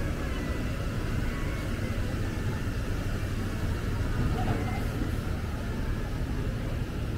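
Steady city street ambience, dominated by a low, even rumble of road traffic.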